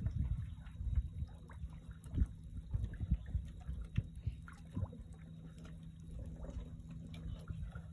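Water lapping and splashing at the surface in irregular small splashes over a low rumble, with a steady low hum underneath.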